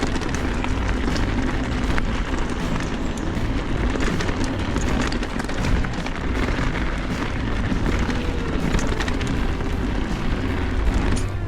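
Mountain bike descending a dirt and rock trail: wind rushing over the microphone and tyres rolling over the ground, with a steady rumble and many small rattles and ticks from the bike.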